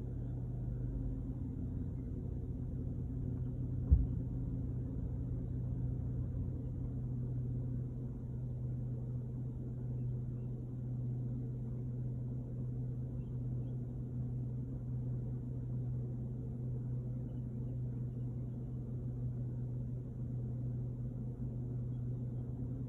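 A 2011 GMC 1500 pickup's engine idling steadily, with one sharp click about four seconds in.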